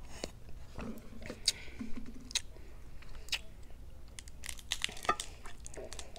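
Crab leg shells being cracked and pulled apart by hand: a run of sharp, irregular snaps and crackles of shell, thickest about five seconds in.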